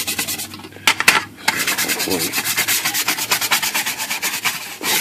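A brush scrubbing cleaner-sprayed typewriter cover panels in rapid back-and-forth strokes, with a brief pause a little after a second in.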